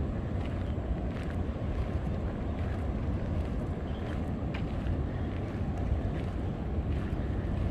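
Waves breaking on a coral reef: a steady, low rush of surf with faint splashes on top, mixed with wind on the microphone.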